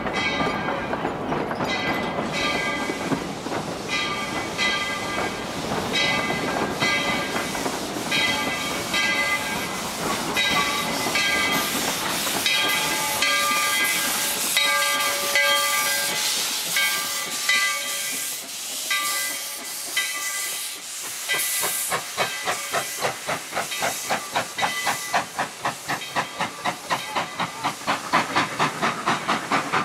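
Narrow-gauge steam locomotive hissing steam, with a whistle-like ringing tone that keeps starting and stopping. About twenty seconds in, its exhaust chuffs take over in an even beat of about three a second.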